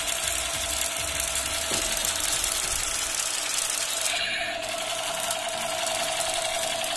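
Battery-operated toy machine gun firing continuously: a rapid, steady rattle with a constant tone underneath, which changes briefly a little after four seconds.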